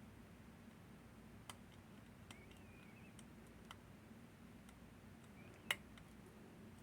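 Faint, scattered metallic clicks and light scraping of lock-picking tools working the levers of a Northern Telecom NE-22 six-lever lock. One sharper click comes near the end.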